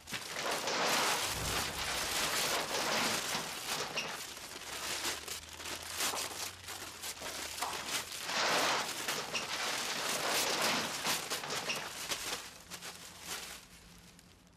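Large paper posters and photo prints being ripped off a wall and crumpled, a long run of tearing and crinkling that stops near the end.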